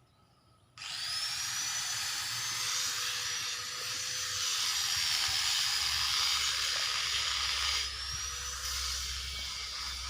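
An angle grinder at a welder's shop spins up with a sudden rising whine about a second in, then runs steadily with a loud hissing grind. Near the end the whine drops and climbs again.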